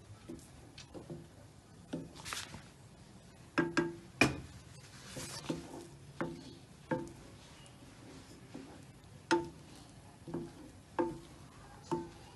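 Spatula knocking and scraping against a frying pan while pushing cooking egg from the edges towards the centre: about a dozen irregular knocks, each ringing briefly, with a few short scrapes.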